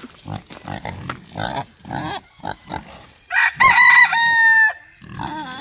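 A rooster crows once, loudly, about three seconds in, the call lasting about a second and a half. Before it, pot-bellied pigs grunt in short, repeated sounds.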